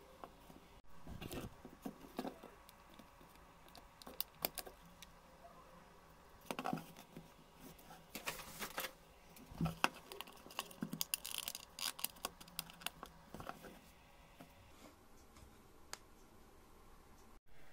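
Faint, irregular clicks, taps and short scrapes of small metal clock hands being pressed onto a clock movement's shaft and the wooden clock board being handled.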